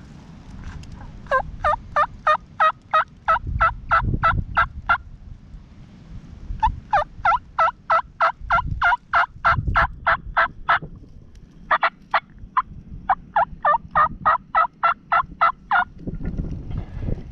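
Turkey yelping: three long runs of rapid, evenly spaced yelps, about four a second, with short pauses between the runs.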